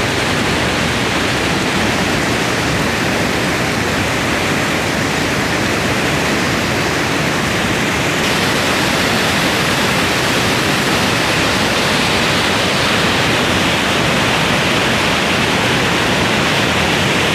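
Rushing stream water: a steady, even rush of noise.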